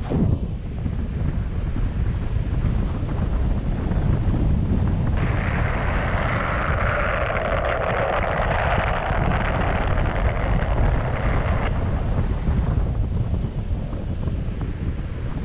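Wind buffeting the microphone of a paraglider pilot in flight, a steady low rumble, with a louder hissing rush of air from about five seconds in until about twelve seconds.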